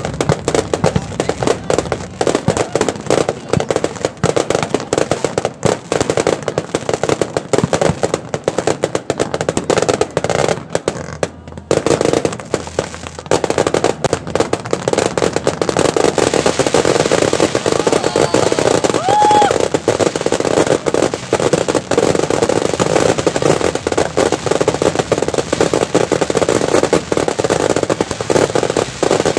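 Fireworks display going off: a dense, continuous stream of bangs and crackling, easing briefly about halfway through.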